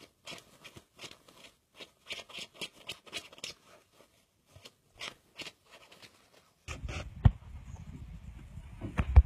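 Cat grooming its fur: a run of short, irregular licking and nibbling sounds. About two-thirds of the way in they give way to a low steady rumble with two sharp thumps.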